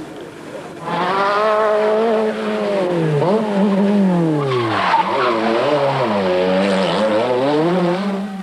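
A 1985 Group B rally car's engine revving hard on a special stage. It comes in loud about a second in, and its pitch climbs and falls again and again as the driver shifts gears and lifts off between corners.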